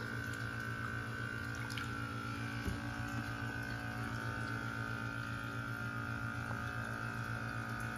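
Steady hum of a pool pond's water pump running, with water flowing beneath it.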